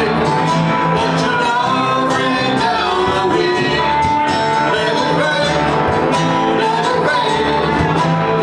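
Small live band playing a song: electric bass and acoustic guitars with singing.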